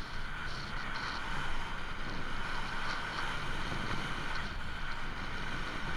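Wind rushing over the microphone of a camera riding on a moving electric trike, with steady road and drive noise underneath and a steady mid-pitched drone throughout.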